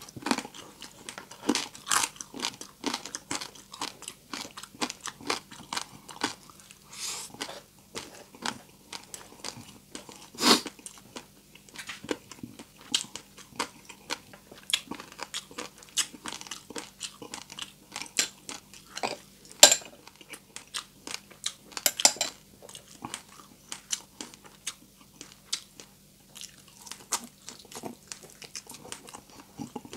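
Close-up chewing and crunching of crispy deep-fried pork, with irregular sharp crunches all through; the loudest come about ten, twenty and twenty-two seconds in.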